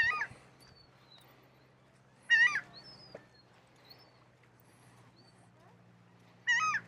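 An animal gives three short, high, wavering whining calls: one at the start, one about two and a half seconds in and one near the end. Faint small chirps sound in the background.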